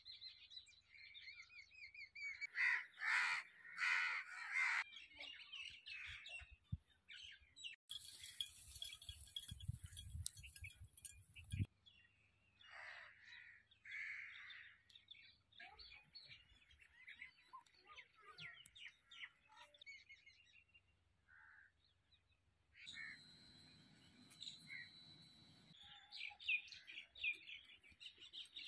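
Outdoor bird calls: crows cawing, loudest in a cluster of harsh calls a few seconds in, with smaller birds chirping throughout. A stretch of hiss and low rumble comes about eight seconds in.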